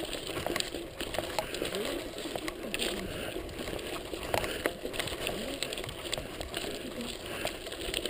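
Mountain bike rolling over a rocky gravel track: tyres crunching on loose stones and the bike rattling, with frequent sharp clicks and knocks as it jolts over rocks.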